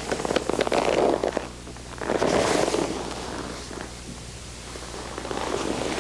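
Body moving on a grappling mat: rustling and sliding of body and clothing against the mat with scattered light knocks, in uneven swells, over a steady low hum.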